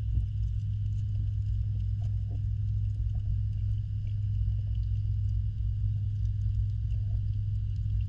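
Underwater sound in a backyard koi pond: a steady low hum from the pond's filtration pump, with a fainter steady high whine and scattered faint clicks.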